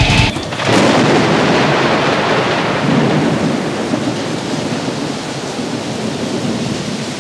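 A rain-and-thunder noise: a steady hiss with a low rumble that starts just after the music cuts off and slowly fades.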